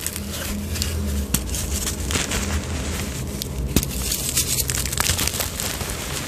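A block of gym chalk being crushed and broken apart by hand into loose powder: dry crunching and crumbling full of small crackles, with one sharper crack a little past halfway.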